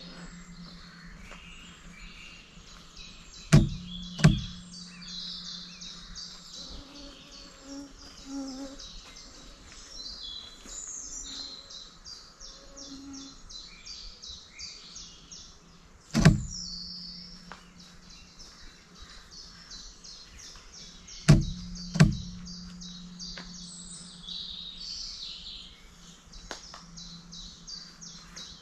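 Woodland birdsong: many small birds chirping and calling continuously. Sharp clicks cut through it a few times, two of them as pairs about two-thirds of a second apart, and some are followed by a low hum.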